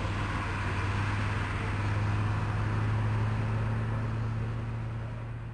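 Convoy vehicles' engines running, a steady low drone with a hiss of road noise that eases off slightly near the end.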